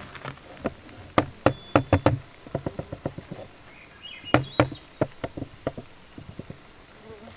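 Irregular sharp clicks and knocks close to the microphone, in clusters about a second in and again just past four seconds: handling noise from a hand-held camera being moved and panned.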